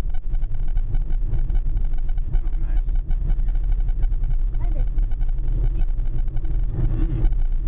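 Inside a vehicle driving along a country road: steady low engine and road rumble from the cabin.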